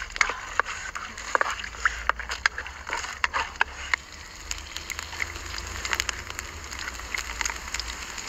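Open wood fire crackling under a wok: frequent sharp pops for the first few seconds, then a steadier hiss with fewer pops.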